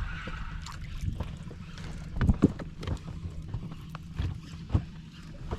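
Irregular knocks and clicks of handling in a small fishing boat, the loudest a pair about halfway through, over a steady rumble of wind on the microphone.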